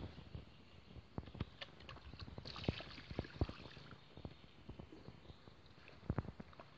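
Handling noises from fishing gear and a plastic tub: scattered light knocks and clicks, with a short rustle about two and a half seconds in.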